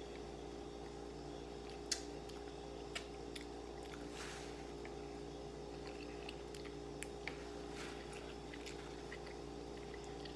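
Close-up chewing and wet mouth sounds of a person eating baked chicken and rice, with scattered short clicks, the sharpest about two seconds in. A steady low hum runs underneath.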